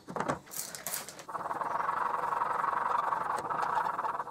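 Steel plane cutting iron, clamped in a honing guide, rubbed back and forth on a 1000/6000 grit Japanese waterstone. A few short scraping strokes give way, about a second in, to a steady rasping scrape that stops abruptly near the end.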